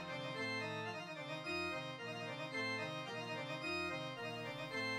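Background music: held organ-like keyboard chords that change every half second or so over a slow bass line.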